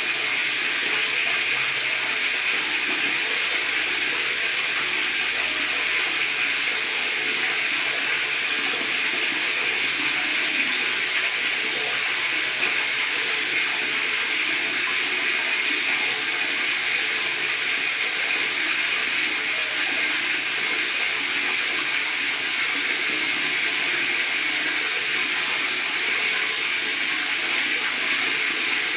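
Tap water running into a bathtub, a steady gurgling splash that does not change.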